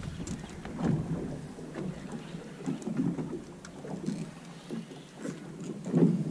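Water slapping and sloshing against the hull of a drifting boat in uneven swells, loudest near the end, with wind on the microphone.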